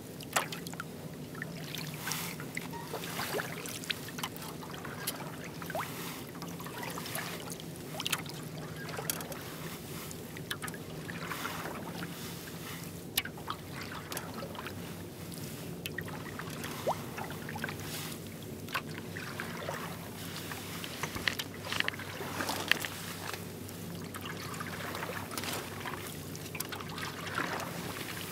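Oars of a small rowboat dipping and pulling through calm water, a soft splash and drip with each stroke every two to four seconds, with sharp little knocks from the oars working in their oarlocks.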